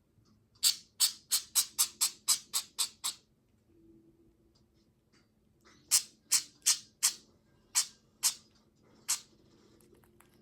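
Two quick runs of sharp, bright clicks or taps, about four a second: about ten in the first run, then seven more a few seconds later.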